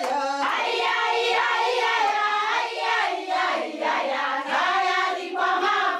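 A group of children singing together in chorus.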